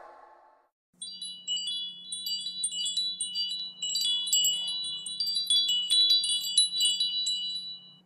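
Chimes tinkling: many overlapping high ringing notes struck at random, starting about a second in, over a faint steady low hum.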